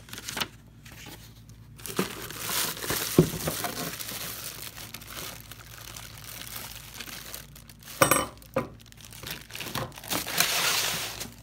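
Clear plastic bags crinkling and rustling as parts wrapped in them are handled and unwrapped, with a few sharp knocks, the loudest about 8 seconds in.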